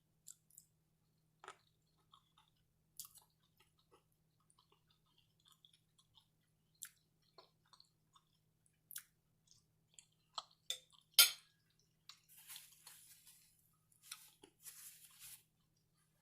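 Close-miked chewing of pan-fried pierogi and cabbage: quiet mouth sounds and scattered small clicks. There is a sharp, louder click about eleven seconds in and two short stretches of hissy noise near the end, over a faint steady hum.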